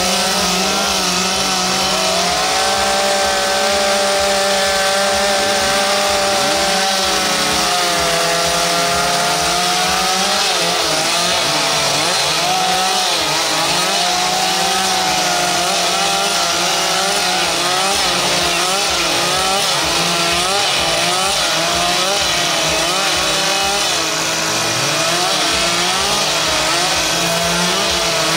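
Several chainsaws running at once while carving wood, each engine's pitch rising and falling on its own as it cuts.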